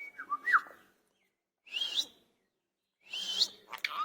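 Indian ringneck parakeet making short, sliding pitched calls in three brief bursts: near the start, about two seconds in, and a longer run near the end.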